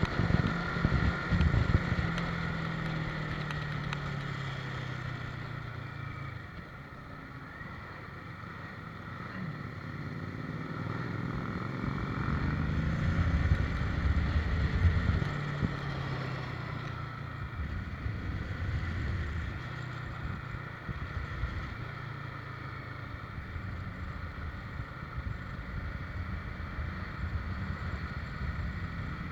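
Motorcycle engine running while riding, its pitch rising and falling with the throttle, with wind rushing over the microphone.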